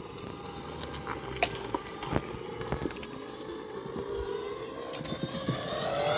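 Ryobi battery-electric zero-turn riding mower driving on concrete: a steady motor whine that rises in pitch and grows louder near the end as the mower comes closer, with a few sharp clicks.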